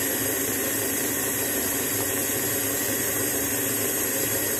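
Electric stand mixer running at a steady speed, its flat beater whipping a creamy butter, sugar and egg batter. A steady motor hum and whine at an even level.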